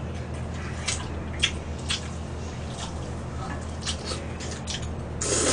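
Close eating sounds of buckwheat noodles: small wet clicks of chewing and chopsticks through the first few seconds, then a louder slurp of noodles near the end.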